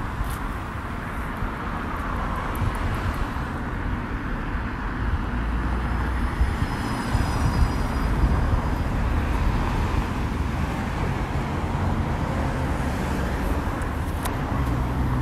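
Town street traffic: cars passing and running, heard as a steady noisy wash with a heavy low rumble. A faint high-pitched squeal rises out of it around the middle, and a sharp click comes near the end.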